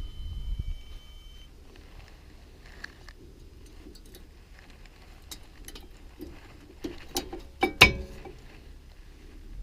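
Metal clinks and taps of hand tools and brake caliper parts being handled during reassembly. They are scattered at first, with a loud burst of ringing clinks about eight seconds in.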